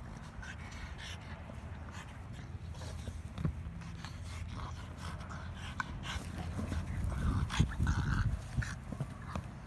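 Small dogs panting as they play with balls on grass, with short rustles and knocks. It grows louder about seven seconds in.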